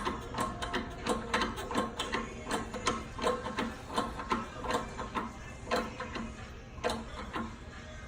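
Quick, uneven metallic clicks and knocks, about three a second, from the work of pressing bushings into machined parts.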